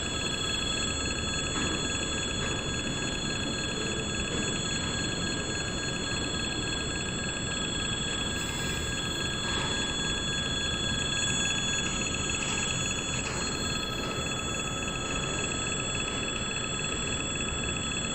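Railway level-crossing warning bell ringing without a break, over the rumble of freight container wagons rolling past on the track.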